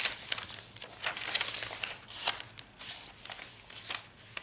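Paper pages of a handmade junk journal being turned and handled by hand: a string of short, dry rustles and crinkles, one page flip after another.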